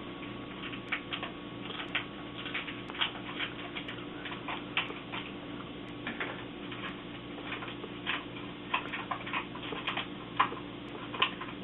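Irregular small clicks and taps of hard plastic packaging being handled while RAM modules are unpacked, over a steady low hum.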